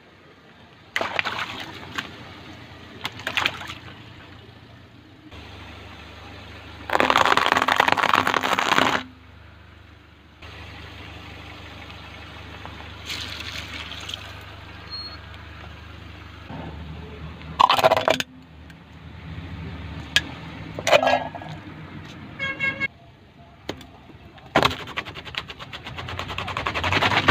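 A car tyre rolling over and crushing objects: water balloons bursting and other items popping and crunching in a series of sudden bursts, one long spraying burst about a quarter of the way in. The car's engine runs low underneath.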